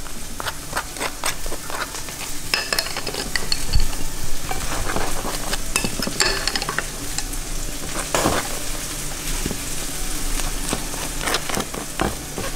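Food sizzling in a hot frying pan, a steady sizzle dotted with frequent small crackles and pops.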